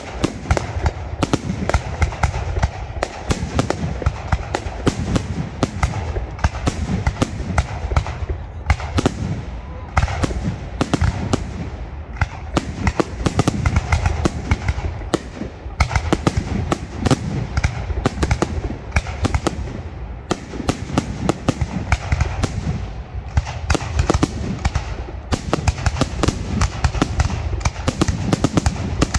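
Fireworks display: a dense, unbroken barrage of aerial shell bursts, many sharp bangs a second over a steady low rumble.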